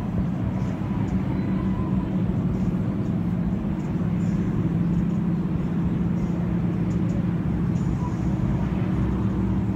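Steady low drone of road and engine noise inside a moving car, an even hum with no breaks.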